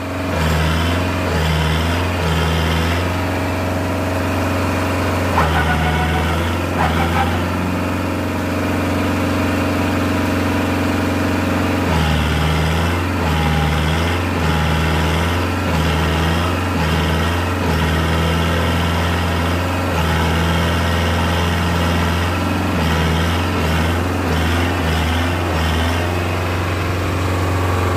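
Kubota MU4501 tractor's diesel engine running loud and steady, its note shifting up and down repeatedly, with the tractor stuck in mud.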